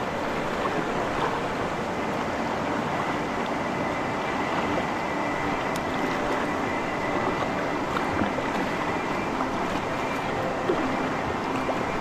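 River water rushing steadily around a raft, an even rush with no change in strength.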